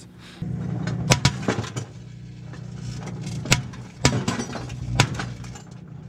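A running microwave oven hums steadily while .22 rimfire cartridges cook off inside it in sharp, scattered pops. Two come close together about a second in, and more follow near the middle and toward the end.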